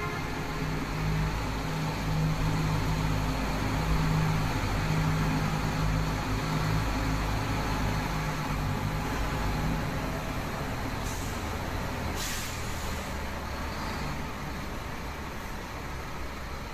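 Steady engine noise: a continuous low hum and rumble under a wide hiss, easing slightly toward the end, with two short hisses about eleven and twelve seconds in.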